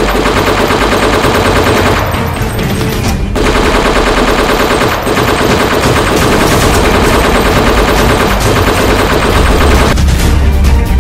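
Rapid gunfire in a staged firefight, shots following each other quickly like automatic fire. It thins briefly about two seconds in, then carries on.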